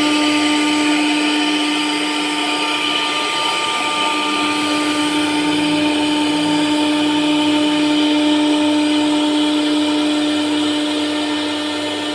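CNC router spindle running steadily as it carves wood, a constant-pitched whine over cutting noise.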